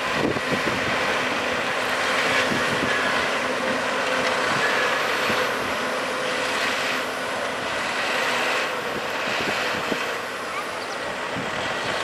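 Diesel engines of a Cat hydraulic excavator and a Cat articulated dump truck running as the excavator loads rock into the truck. The noise swells and eases a few times, with a few short knocks.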